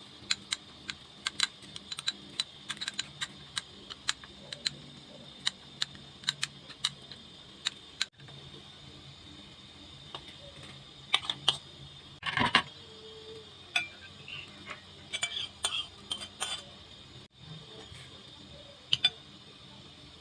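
Kitchen food-preparation clatter: a run of sharp, light, irregular clicks and taps of utensils and cookware, with a longer clatter about twelve seconds in.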